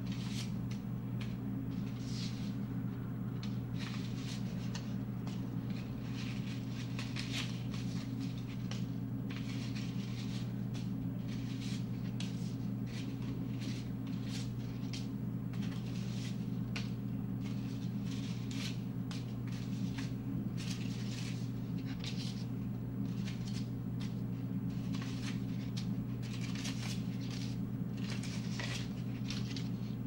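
Paper cutouts being handled, peeled and folded, giving repeated irregular crinkling and rustling over a steady low hum.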